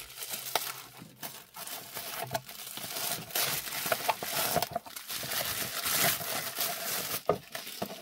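Bubble wrap crinkling and crackling as hands pull a wrapped package out of a cardboard shipping box, with a steady stream of small crackles.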